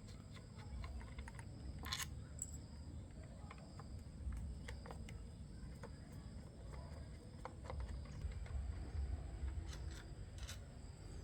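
Scattered light clicks and taps of small metal parts and hand tools being handled, the sharpest about two seconds in and again near the end, over a faint low rumble.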